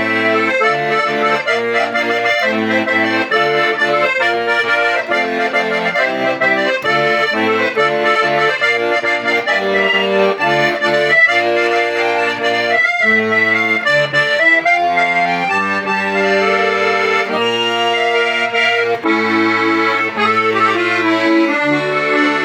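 Hohner Student IV accordion playing a tune: a right-hand melody over a steady left-hand accompaniment of alternating bass notes and chords.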